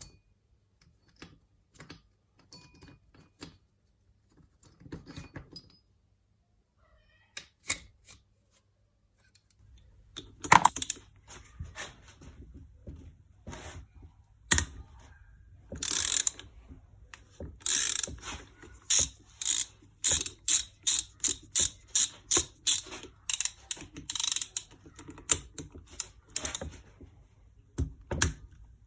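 Hand ratchet wrench clicking in repeated strokes as bolts on a Suzuki DR750 engine are worked loose, after several seconds of scattered small tool clicks and handling noises.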